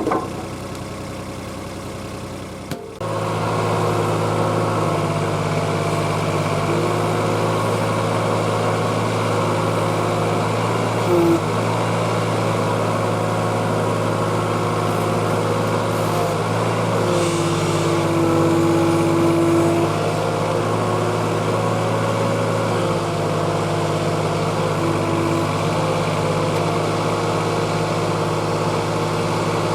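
Kobelco mini excavator's diesel engine running steadily, with a hydraulic whine that changes pitch and level in steps as the controls are worked. The whine is strongest a little past halfway, and there is a short knock near the middle.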